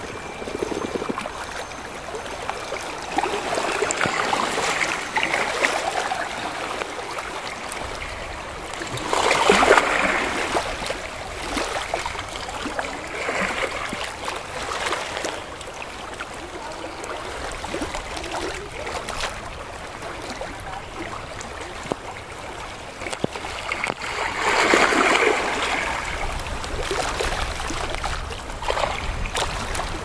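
Gentle sea waves lapping and splashing against rocks at the water's edge, a steady wash of water with small trickles and splashes among the stones. It swells into louder washes several times, most strongly about ten seconds in and again about twenty-five seconds in.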